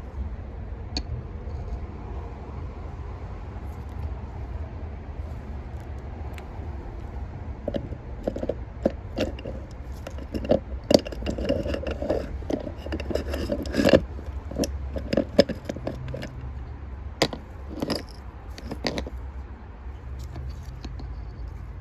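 Metal winch parts being handled and fitted together during assembly: scattered clinks, knocks and scrapes, busiest in the middle stretch, over a steady low hum.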